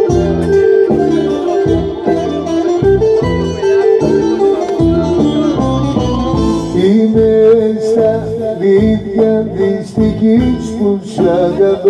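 Live Greek laïka band playing: a plucked-string lead melody over a steady pulsing bass and rhythm section.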